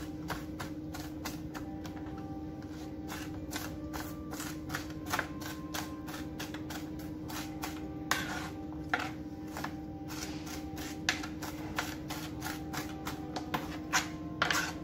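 Kitchen knife chopping onion on a plastic cutting board: quick, irregular knocks of the blade on the board, a few a second, with several louder knocks in the second half.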